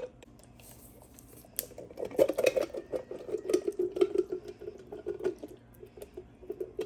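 Canned baked beans being emptied into a pan of browned hamburger meat: a metal spoon scraping and clinking against the can and pan, with the wet squelch of the thick beans. It starts after a quiet second or so.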